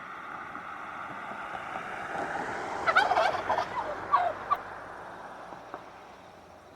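A bird's call, a quick run of short, loud notes about halfway through, over a hiss that swells and then fades.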